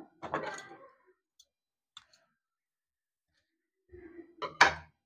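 Pliers and tools handled on a tabletop: a short rustle just after the start, then a few sharp clicks from the pliers near the end.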